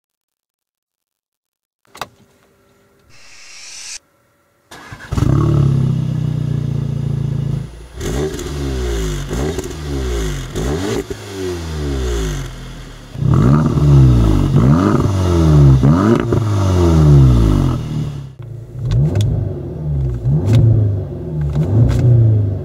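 Audi S3 8V's turbocharged 2.0-litre four-cylinder through a REMUS stainless-steel cat-back sport exhaust. After a click about two seconds in, the engine starts a few seconds later and settles to idle. It is then revved repeatedly while standing, each blip rising and falling in pitch, with longer, higher revs in the middle.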